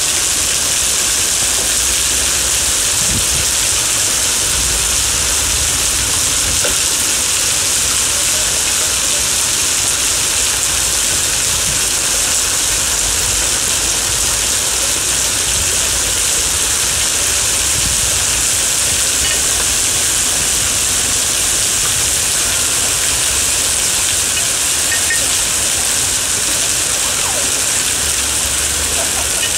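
Heavy rain mixed with small hail pelting wet paving stones: a steady, dense hiss with no letup.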